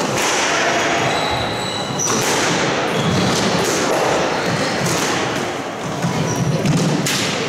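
Squash rally: the ball hitting rackets and walls with a sharp crack roughly every second, amid short high squeaks of shoes on the wooden court floor.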